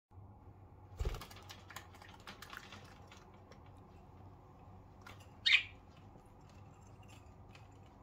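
A thump about a second in followed by a run of light clicks and taps, then a single short budgie chirp, the loudest sound, about five and a half seconds in.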